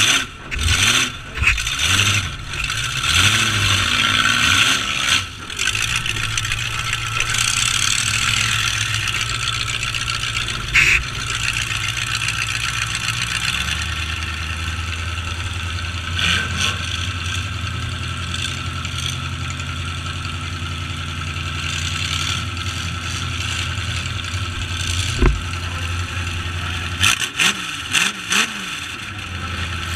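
Big demolition-derby trucks' engines running and revving, their steady low drone stepping up and down in pitch, with a few sharp knocks.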